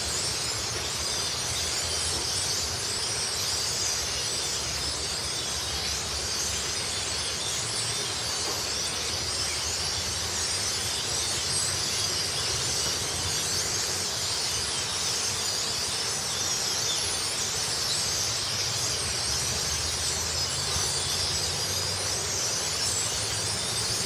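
A huge flock of blackbirds roosting in trees, countless birds chattering and squealing at once in a dense, steady din.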